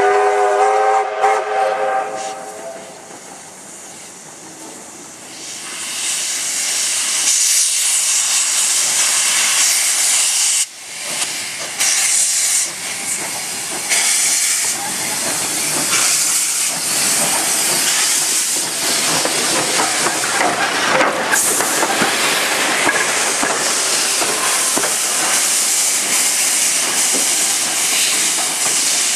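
Victorian Railways R class steam locomotive R761 gives a short blast on its steam whistle with several tones, about two and a half seconds long. From about six seconds in, a loud steady hiss of steam from its open cylinder cocks as it moves past close by.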